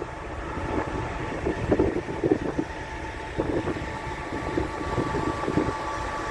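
Wind and moving water, an uneven rushing noise that surges irregularly. A faint steady tone joins in about halfway through.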